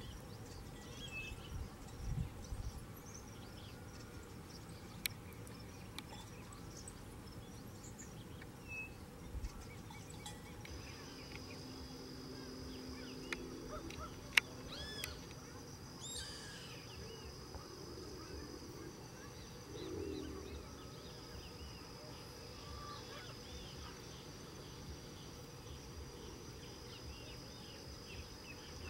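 Quiet natural ambience with scattered short bird calls and chirps. About a third of the way in, a steady high-pitched insect buzz starts and keeps going, with a brief run of arching chirps partway through.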